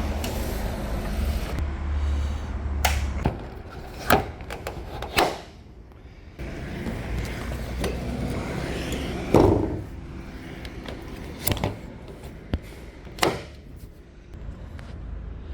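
Van doors and panels being handled: about six sharp clunks and latch clicks spread out, the loudest about halfway through, over a low rumble in the first few seconds.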